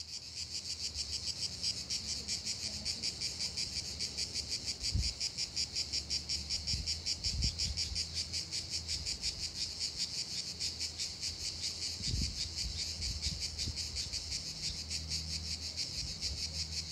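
Insects chirping in a steady, fast-pulsing high trill, with a few faint low thumps.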